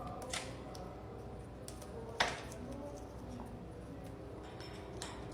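Quiet room tone with one sharp click about two seconds in and a fainter click near the start.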